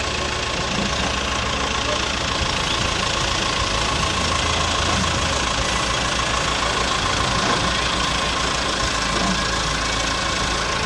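Engine running steadily at low revs, with an even low throb.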